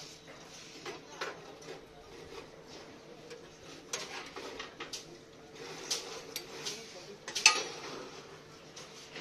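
Steel rebar clinking and knocking against the steel table, pins and bending arm of a bar bending machine as the bars are handled and set, in irregular clinks with the loudest clank about seven and a half seconds in. A faint steady hum runs underneath.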